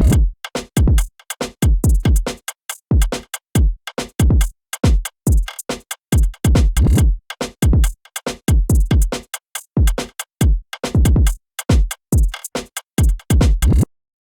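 Drill beat on drum machine with only drums and 808 bass: short, separate 808 bass notes that glide down in pitch, with kick and hi-hat hits, no melody. The beat stops suddenly near the end.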